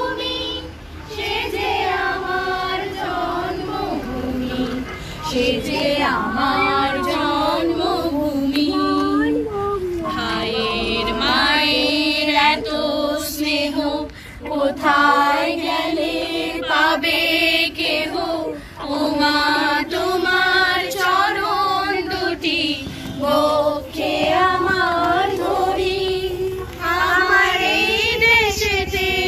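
A small group of adults singing together in unison, a patriotic song, with short breaks between phrases.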